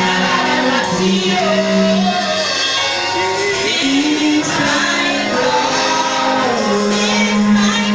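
Gospel song: voices singing long held notes over a dense instrumental backing.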